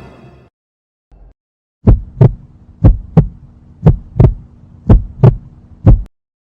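Heartbeat sound effect: deep lub-dub thumps in pairs about once a second, four beats and then a single last thump, over a faint low hum.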